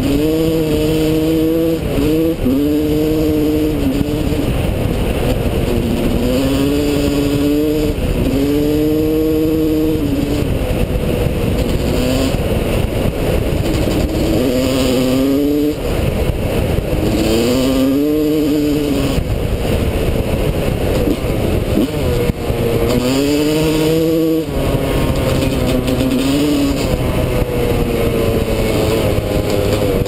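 A Suzuki RM250's single-cylinder two-stroke engine at full ride. Its note climbs sharply, breaks off and climbs again over and over as the bike is run hard through the revs.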